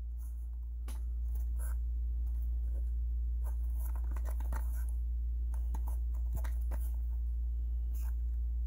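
Fingers handling and turning a boxed diecast car, its cardboard box with a clear plastic window giving small scattered clicks, taps and scrapes, over a steady low hum.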